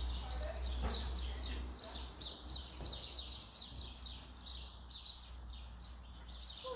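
Small birds chirping continuously, a dense run of short high chirps overlapping one another, with one sharp click about a second in.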